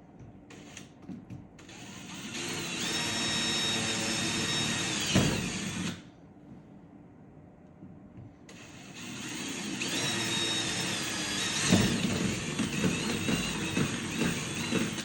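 Power drill boring holes through the hard plastic of a tool trolley: two runs of several seconds each, with a steady motor whine and a short pause between them.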